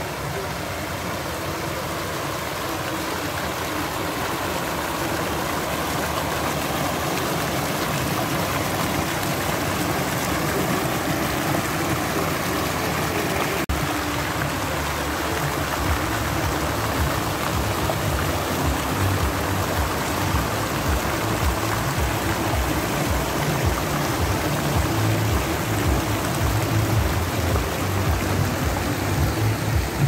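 Splashing of a large multi-jet public fountain, its many water jets falling steadily into the basin. In the second half a low fluttering rumble joins the splashing.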